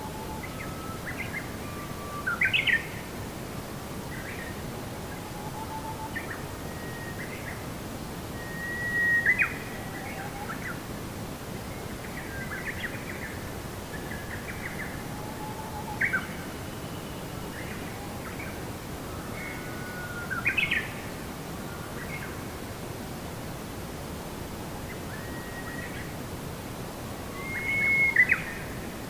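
Wild birds chirping and calling in short, scattered phrases, a few louder calls standing out now and then, over a steady background hiss.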